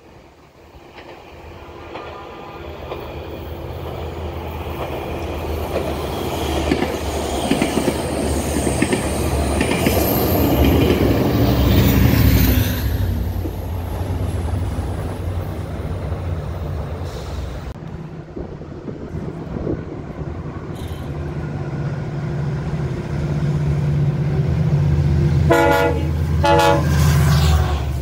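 A commuter train approaching and passing close by, its wheels on the rails growing louder to a peak about twelve seconds in, with a thin high squeal falling in pitch as it goes by. Later a locomotive drones steadily and a train horn sounds two blasts near the end.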